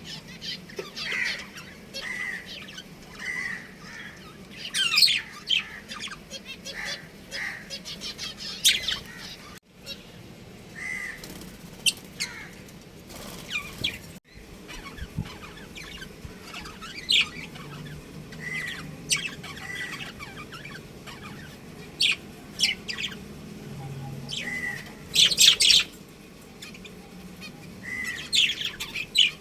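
Budgerigars chirping: many short, sharp chirps scattered throughout, with a few louder clusters of rapid chirps.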